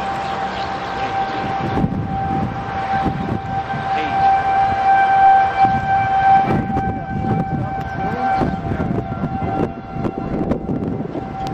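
Outdoor civil defence siren sounding a steady tone, a tornado warning, swelling louder and fading back as it sounds. Wind gusts rumble on the microphone underneath.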